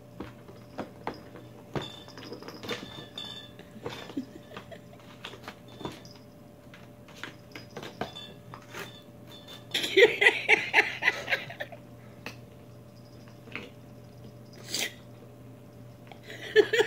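A cat chewing and clawing at a cardboard beer-box, giving scattered small clicks, crackles and scratches. A louder, busier burst of sound lasts about two seconds around ten seconds in.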